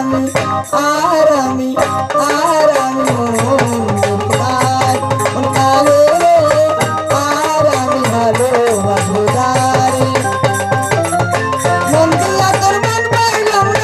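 Live Bangla folk song: a woman's voice sings a gliding melody through a microphone over the steady beat of a barrel-shaped dhol drum and other hand percussion.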